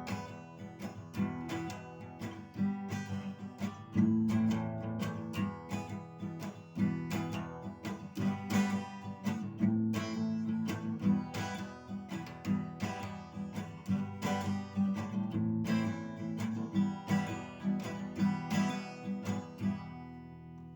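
Acoustic guitar strumming chords in a steady rhythm, the instrumental outro of a song; the last chord rings out and fades near the end.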